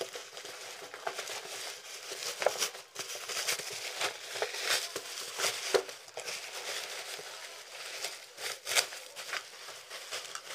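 Woven plastic sack packaging crinkling and rustling as it is pulled open and off a parcel by hand, with irregular sharp crackles throughout.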